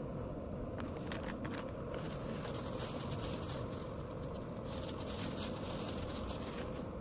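Benelli TRK502X motorcycle being ridden: a steady low rumble with wind rush on the microphone, scattered ticks and crackles, and a brighter hiss through the middle.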